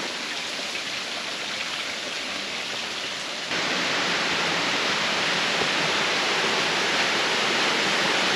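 Water rushing over rocks, a steady hiss and roar that steps up louder about three and a half seconds in.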